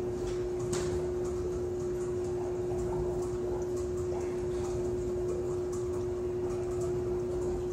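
Steady hum on one even tone with faint scattered ticks and clicks from a running buoyancy-driven "gravity power" demonstration machine: clear acrylic float spheres on chains moving through a water column.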